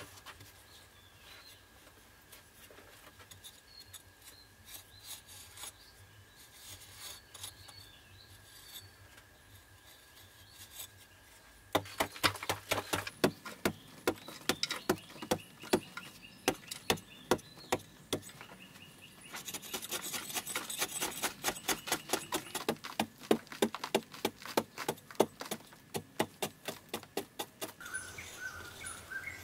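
A long-handled hand digging tool scraping and chopping into packed clay earth: faint scraping at first, then from about twelve seconds in a run of sharp strikes, about two a second, that keep on to near the end, with a denser hiss joining from about twenty seconds.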